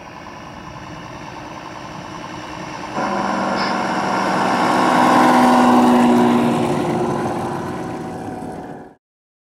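Sound module in a Tamiya Knight Hauler RC tractor-trailer playing a recorded real truck engine as the model drives past. It steps up in loudness about three seconds in, swells to a peak, fades, then cuts off suddenly near the end.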